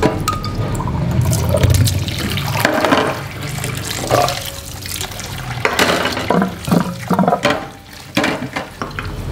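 Tap water running and splashing as chilies are rinsed by hand in a sink, in uneven sloshes and splashes that ease off briefly about eight seconds in.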